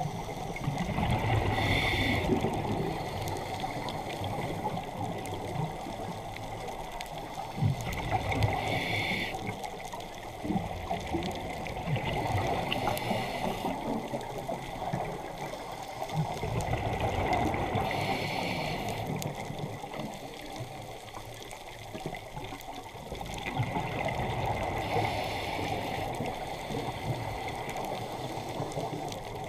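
Scuba diver breathing through a regulator underwater: a rush of exhaled bubbles about every five to six seconds, each lasting a second or two, over a steady underwater wash.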